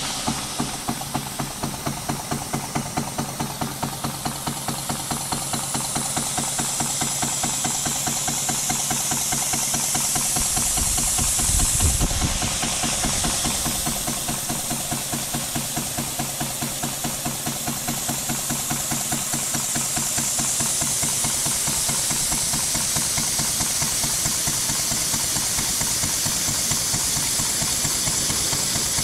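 Home-built model horizontal steam engine with a brass cylinder and spoked flywheel running: quick, even exhaust beats over a steady hiss. The hiss grows brighter midway and eases about twelve seconds in.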